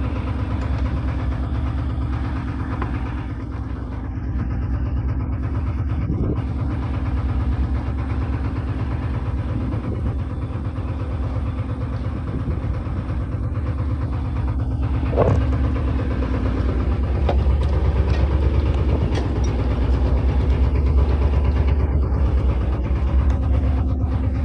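A fishing boat's engine running steadily, a low drone throughout, with a single brief knock about fifteen seconds in.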